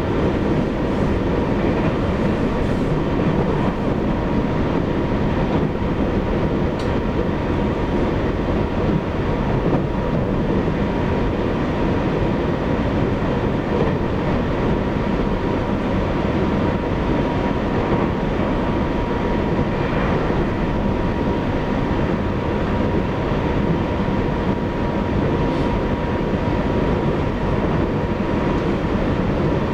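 Running sound of a Taiwan Railways EMU800 electric multiple unit heard from inside the car: a steady rumble of wheels on rail, with a faint, thin, steady whine over it.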